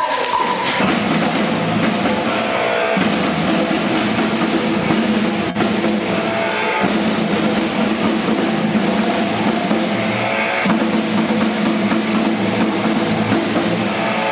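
Heavy rock music with a full drum kit over a dense, sustained band sound, shifting to a new section every few seconds.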